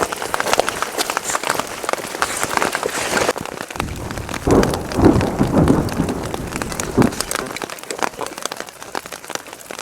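Rain pattering steadily as a dense patter of ticks, with a low rumble swelling for about three seconds in the middle.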